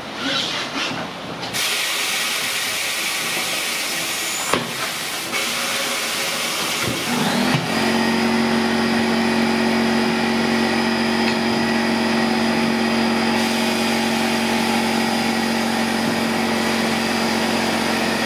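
Tire changer's pneumatic bead breaker hissing with air as it presses the tire bead loose from a steel wheel, with one sharp knock about four and a half seconds in. About seven seconds in, a steady motor hum starts and runs on under the hiss.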